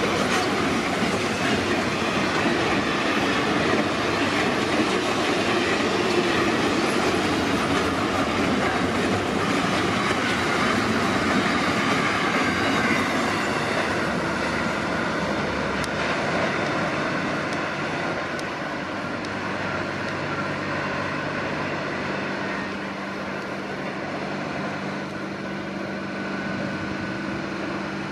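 Freight train wagons rolling past at speed, a steady clatter of steel wheels on rail. The noise fades over the second half as the tail of the train goes by and draws away, leaving a steady low hum.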